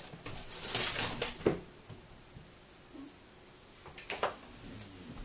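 A cat clawing at and hanging on a screen door makes the door rattle and knock, loudest about a second in. A few more sharp knocks come around four seconds in as the cat drops back to the floor.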